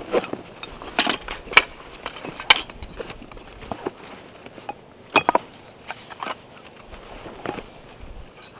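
Wooden parts of a homemade take-apart bucksaw frame knocking and clacking together as they are pulled from a backpack and handled, with a few sharp knocks and one brighter clink with a short ring about five seconds in, over the rustle of handling.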